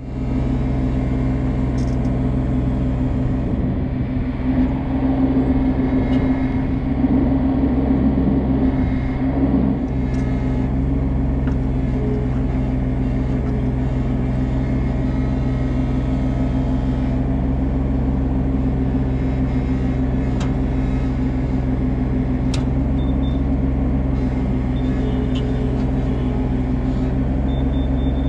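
Komatsu PC16 mini excavator's diesel engine running steadily, heard from the cab, louder and rougher for a few seconds about four to ten seconds in while the arm digs.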